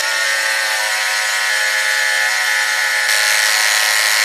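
Small 12-volt electric oil transfer pump running steadily with an even-pitched whine as it pumps gearbox oil through a hose.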